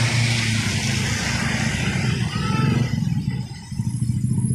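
Motor scooters and motorcycles passing along a wet road, their small engines running with a low pulsing rumble. Tyre hiss from the wet asphalt fades in the first second or two. The sound dips briefly near the end before another motorcycle comes through.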